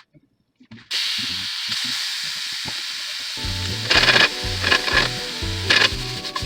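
Bacon frying in a pan: a steady sizzle that starts about a second in, with a few louder crackling spurts. Background music with a steady beat comes in about halfway through.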